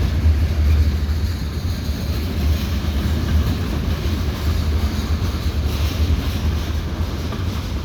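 Freight train cars rolling slowly past at yard speed, a steady low rumble.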